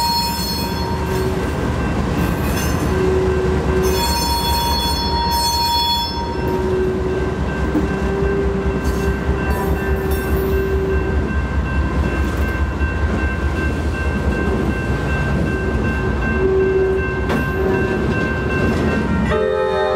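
A train rolling past with a heavy, fast-pulsing rumble of wheels on rail, and high-pitched wheel squeal coming and going. Near the end, a locomotive horn starts sounding a chord.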